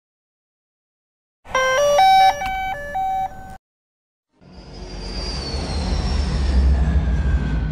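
A short jingle of bright, chime-like notes lasting about two seconds, starting about a second and a half in. After a brief silence comes a swelling whoosh with a low rumble and a slowly falling whine, building to a peak and starting to fade near the end.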